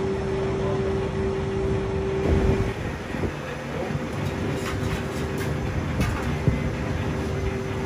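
Steady mechanical hum and low rumble of restaurant kitchen equipment. A steady hum tone drops out about two and a half seconds in and returns near the end, with a few light clicks in between.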